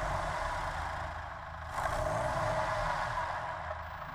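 Mahindra Thar SUV's engine running with a low, steady rumble that shifts slightly about two seconds in.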